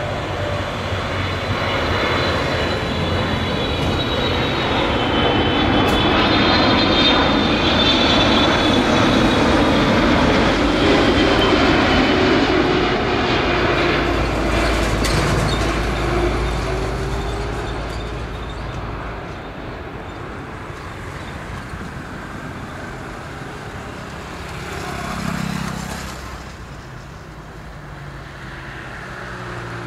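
Boeing 777-300ER's GE90 turbofan engines passing low overhead on landing approach. A loud jet rumble with a high fan whine builds to a peak about a third of the way in, its tones sliding down in pitch as it goes by, then fades away.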